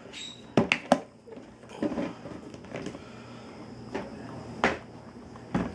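Handling noise: a scattered series of sharp knocks and clicks as things are set down and moved about, a quick cluster of three near the start and single ones later, over a faint steady hum.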